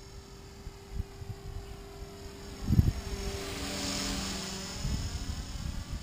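E-flite Blade 300X electric RC helicopter's motor and rotor whine, growing louder as it passes close overhead about four seconds in. A couple of low thumps about one and three seconds in.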